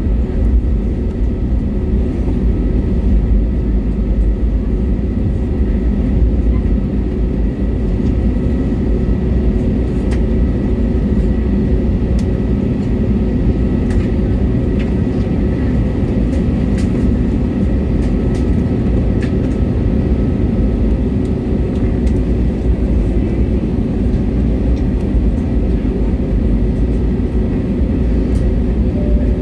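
Airbus A320neo's Pratt & Whitney geared turbofan engines running at idle, heard inside the passenger cabin as a steady low rumble with faint steady whining tones above it. A few faint ticks come through the rumble.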